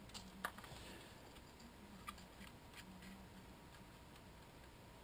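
Near silence with a few faint clicks and light taps, about half a second and two seconds in, from hands working a bamboo skewer through a paper model part.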